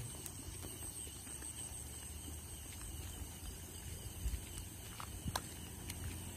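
Footsteps walking along a path between rice paddies, a few scattered taps over a steady low rumble. A thin, steady high drone of night insects runs throughout.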